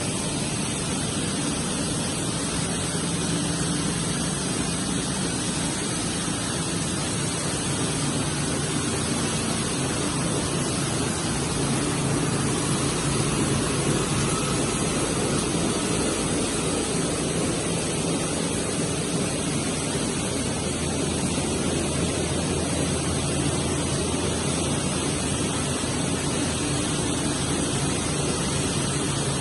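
PET plastic bottle washing line running: steady machine noise with a low hum underneath.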